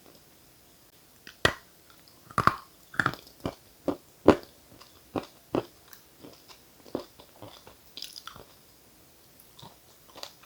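Edible chalk and clay being bitten and chewed close to the microphone: a quiet first second, then a run of crisp crunches, the loudest in the first half, giving way to lighter, irregular chewing.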